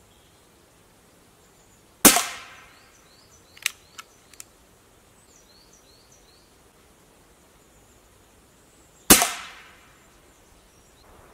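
Scoped air rifle fired twice, about seven seconds apart: each shot is a sharp crack with a short fading tail. A few light clicks follow about a second and a half after the first shot.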